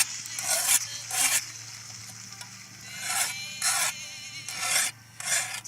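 About eight short crunching or scraping strokes, each about a third of a second, in an uneven rhythm with a pause of about two seconds after the first few, over a faint low hum.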